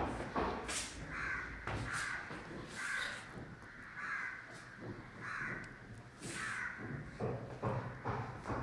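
Crows cawing, about six calls roughly a second apart, with a few knocks near the end.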